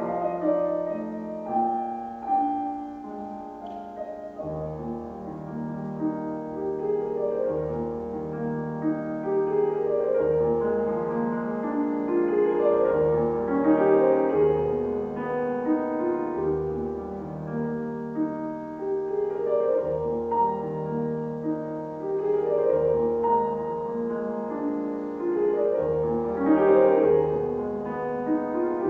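Grand piano played solo: a classical passage of sustained chords over repeated deep bass notes, swelling louder in places.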